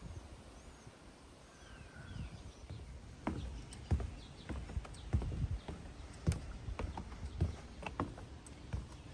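Faint bird chirps at first, then from about three seconds in a run of irregular knocks and thumps, like footsteps.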